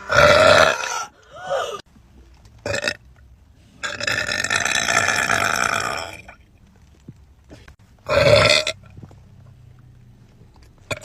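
A person belching loudly several times: a short belch at the start, a brief one near three seconds, a long drawn-out belch lasting about two seconds in the middle, and another short one about eight seconds in.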